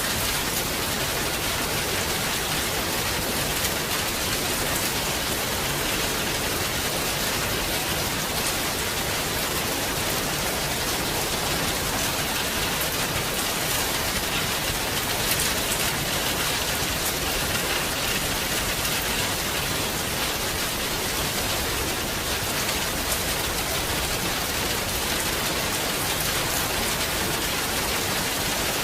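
Heavy rain falling steadily: a dense, even hiss of drops with a few sharper drop ticks standing out.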